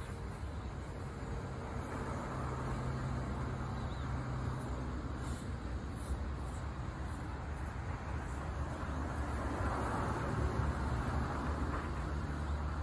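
Steady rumble of road traffic, swelling twice as vehicles pass.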